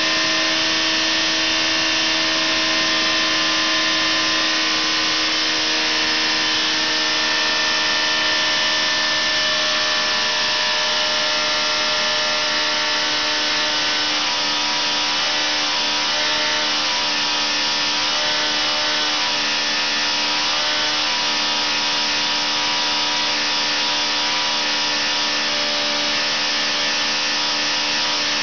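Engine running steadily on a dynamometer test bed inside the test cell; about six seconds in its speed eases down gradually over several seconds, then holds steady.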